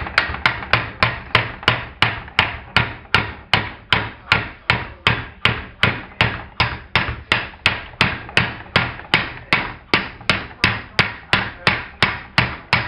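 A hammer tapping steadily on a metal drift, about three strikes a second, driving the wrist pin out of a Stihl S-10 chainsaw's piston.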